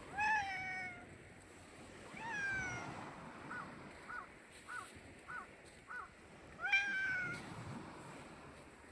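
A cat meowing: three drawn-out meows that fall in pitch, about two seconds in and near the end, with a run of five short, quieter mews in between.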